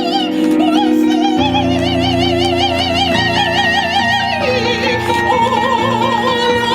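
Gospel singer holding long, wordless notes with a wide vibrato over sustained chords; a low bass part comes in about a second and a half in.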